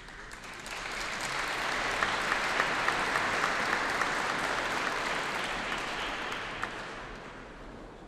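Audience applauding: the clapping swells up over the first couple of seconds, holds steady, and dies away near the end.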